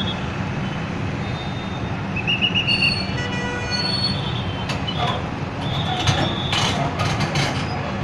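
Heavy diesel engine of an excavator running steadily, with several short high-pitched metal squeals and a quick run of clanks about six to seven and a half seconds in.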